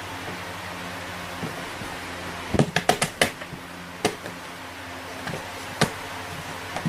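Sharp taps and knocks on a cardboard box as cats paw and scramble at it: a quick run of about six a little over halfway through, then single knocks later, over a steady low hum.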